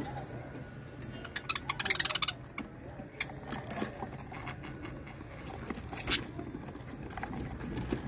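Clicks and scratches from budgies in a wire cage and wooden nest box: a short burst of rapid rattling clicks about two seconds in, then single sharp taps, over a low steady hum.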